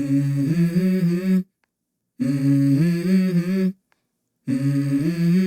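Background music: a single voice humming a wordless melody in three short phrases, with dead silence between them and no instruments behind it.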